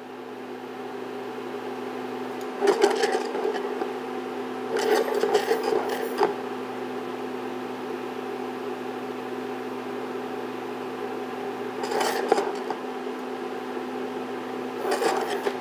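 Portable induction cooktop humming steadily under a saucepan of boiling sugar syrup that is cooking toward caramel. Four short bouts of scraping come as the pan is slid and swirled on the glass top.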